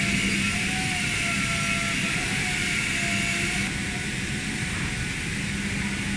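Steady machinery noise in a factory workshop: a constant low hum under a hiss, with a thin wavering whine that fades out about four seconds in.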